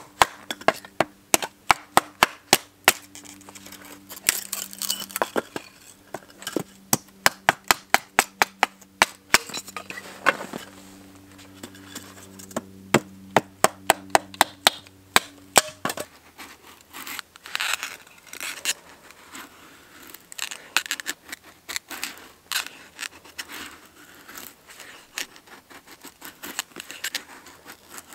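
Hatchet splitting kindling on a wooden chopping block: quick, sharp knocks of the blade into the wood, about three a second. Roughly halfway through these give way to softer scraping strokes of a Mora knife shaving curls off a stick for feather sticks.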